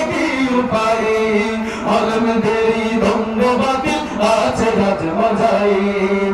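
Two men singing a Bengali Islamic song together into microphones, in long held, melodic lines.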